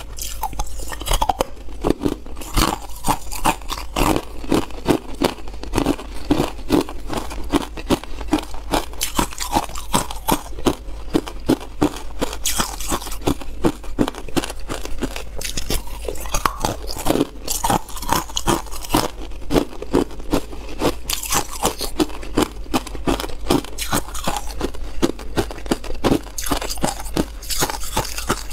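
Ice cubes being bitten and chewed: a continuous run of sharp crunches and cracks, several a second.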